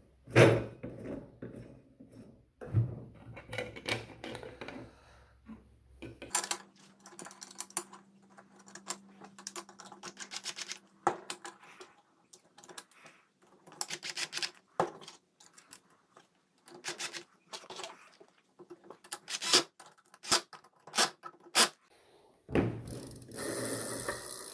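Small metal parts and hand tools clicking and clinking in irregular knocks as the rear freewheel, washers and sprocket assembly of an electric dirt bike is put back together. Near the end a steady rattling buzz sets in.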